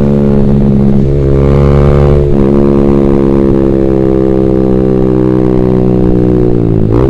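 Yamaha sport bike with a Ronin Black Katana three-mode racing exhaust, its glass-wool packing freshly replaced, running at cruising speed. The exhaust note holds steady with a brief change about two seconds in, then falls slowly as the bike slows, dropping more sharply near the end.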